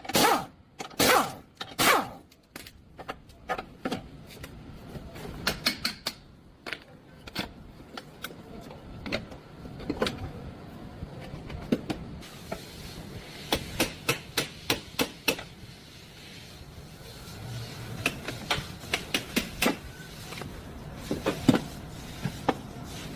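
Repeated sharp knocks of tools on metal during CV joint work on a Toyota Corolla, some coming in quick runs of about three or four a second, the loudest near the start.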